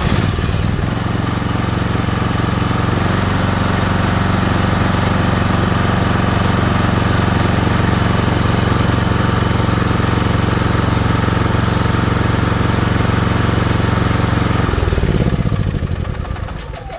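Generator engine, switched on at the unit itself, running steadily, then shut off about fifteen seconds in and spinning down.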